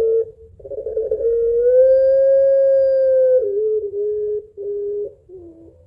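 Puter pelung ringneck dove cooing: one long drawn-out coo, held for almost three seconds with a slight rise in pitch, then dropping into a few shorter, lower coos.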